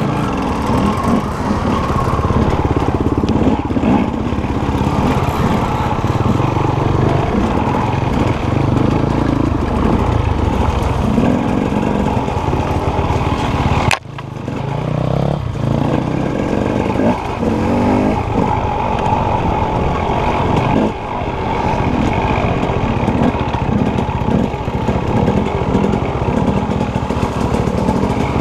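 Dirt bike engine heard from the rider's helmet, revving up and down over a rough trail, with the rattle and knocks of the bike over the ground; the sound briefly drops out about halfway through.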